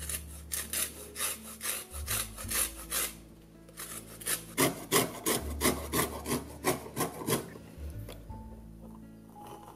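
Lemon peel rubbed over a flat stainless-steel fine grater, zesting the lemon: quick rasping strokes, about three a second, in two runs with a short pause near the middle.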